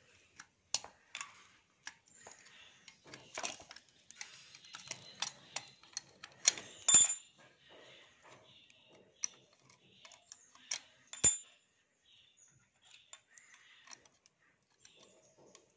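Metal tool scraping and prying at the steel clamp of an old step-up transformer, with a run of sharp metallic clinks and knocks that ring briefly; the loudest clinks come about seven and eleven seconds in.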